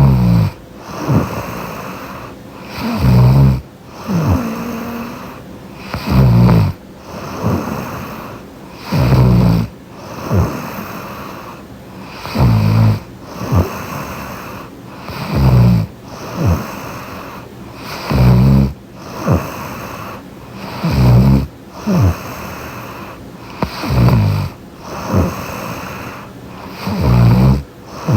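A woman snoring in her sleep close to the microphone: a loud, low snore about every three seconds, each followed by a shorter, softer sound.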